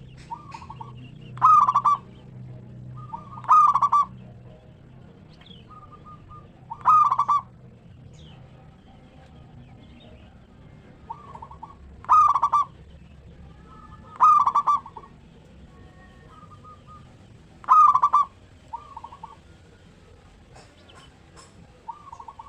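Zebra dove (perkutut) cooing: six loud rolling coos spaced a few seconds apart, most of them preceded by a softer, shorter note.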